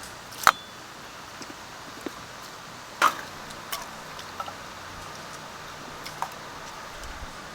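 A few scattered sharp clicks and clinks of tableware and utensils being handled, the loudest about three seconds in, one with a brief ring, over a steady background hiss.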